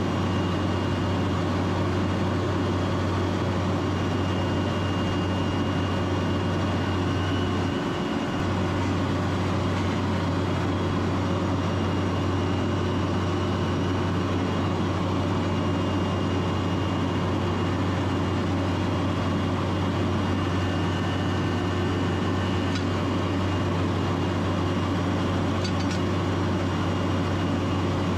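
Schramm 450WS drilling rig's diesel engine running steadily, a constant low drone that dips briefly about eight seconds in.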